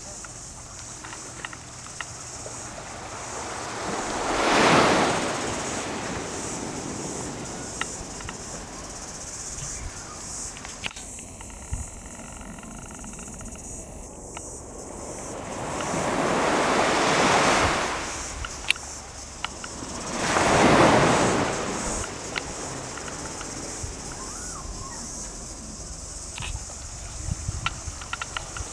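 Small waves washing up on a sand and shell beach, the surf swelling louder three times and falling back, with a few faint clicks.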